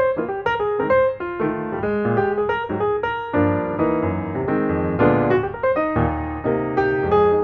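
Background music: a piano playing a flowing melody over chords, with quick struck notes.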